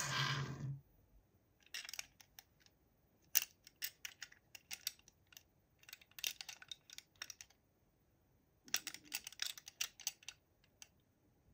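Irregular clusters of small, light clicks and taps from plastic toy packaging being handled, following a louder noisy sound that ends a little under a second in.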